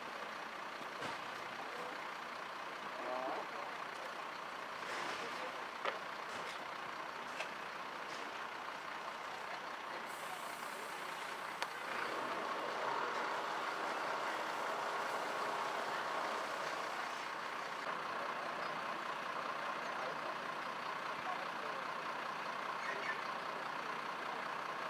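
Fire engine running steadily with a constant mechanical drone and a faint steady whine, broken by a few sharp clicks; it gets a little louder about halfway through.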